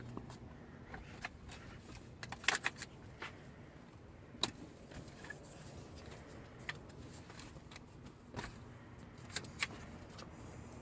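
Scattered clicks, rattles and clatters of an infant car seat base and its latch hardware being handled and tightened in a van, with a quick run of clatters about two and a half seconds in.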